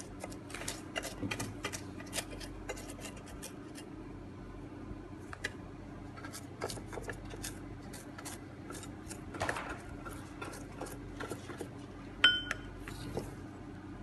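Plastic pastry brush tapping and scraping over the nonstick moulds of an electric cartoon-cake maker as the plate is greased with oil: irregular small clicks and taps over a faint steady hum. A louder clack with a brief ringing tone comes near the end.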